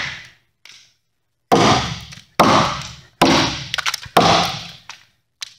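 Council Tool pack axe chopping into a timber beam: four hard chops about a second apart, each echoing briefly, with a faint tap before them and a short click near the end.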